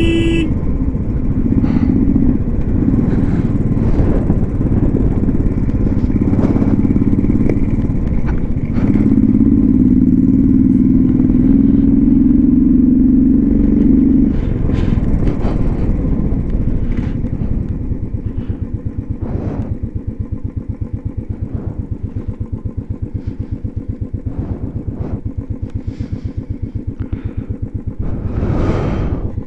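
Motorcycle engine running hard under load for the first half. From about two-thirds of the way in it settles to a slower, evenly pulsing beat at low revs, with a short rev near the end.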